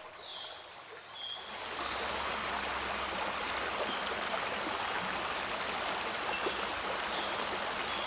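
Shallow stream running over stones, a steady rush of water that comes in about a second in and holds level. A short high trill sounds just as the water begins.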